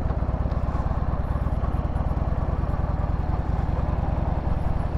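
Harley-Davidson Sportster's air-cooled V-twin engine running steadily at low road speed, its exhaust pulses giving an even, rapid beat.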